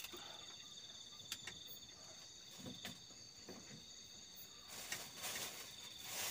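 Night insects, crickets, trilling steadily at a high pitch, faint, with a few soft clicks. About two-thirds of the way through a hiss comes in and carries on.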